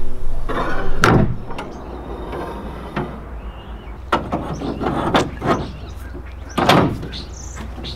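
Half-inch metal conduit blind frame scraping and clanking against a jon boat's rails as it is shifted into position, in several uneven bursts, the loudest about a second in and again near seven seconds.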